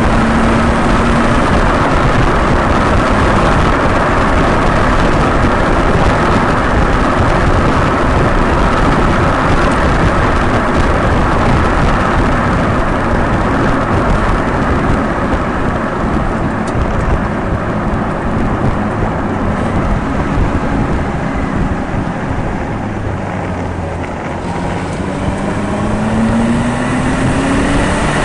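Car driving at road speed, heard through an outside-mounted camera: a steady rush of wind on the microphone and tyre noise, with the engine faint underneath. Near the end the engine note rises steadily as the car accelerates.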